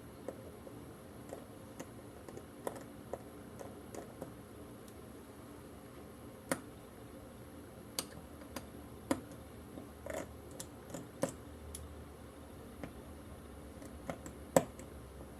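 Irregular small clicks and taps of a precision screwdriver and tools on the parts of an opened iPhone 7 Plus as the antenna's screws are taken out, over a faint steady hum. The sharpest click comes near the end.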